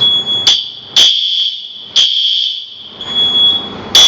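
Fire alarm sounding during a smoke detector test: a loud, high-pitched electronic tone that pulses about once a second.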